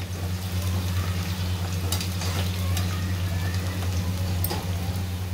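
Sliced onions sizzling as they fry in hot oil over a high flame, stirred with a slotted spoon, with a couple of light clicks of the spoon against the pot. A steady low hum runs underneath.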